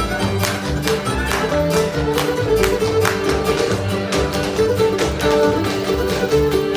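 Old-time string band playing a fiddle tune: a bowed fiddle carrying the melody over plucked strings and low notes, driven by a steady beat.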